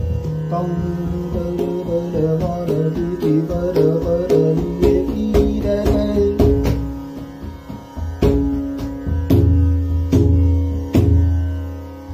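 Male Dhrupad vocal in Rag Bhup over a steady tanpura drone, with pakhawaj strokes throughout. The melody moves quickly through the first half and settles on held notes, while deep ringing strokes on the pakhawaj's bass head come in the second half.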